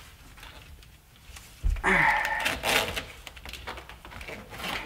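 Handling noise of hands working wiring and parts in a jet ski's engine bay: scattered rustles and sharp clicks, busiest around the middle and again near the end.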